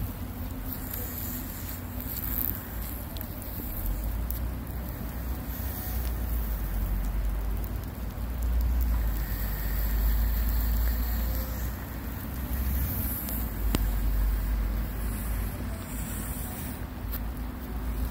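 Outdoor rain ambience through a phone microphone: a steady hiss of light rain with a low wind rumble on the microphone that swells and fades.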